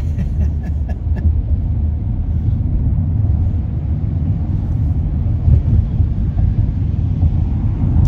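Steady low road-and-engine rumble of a car driving, heard from inside the cabin.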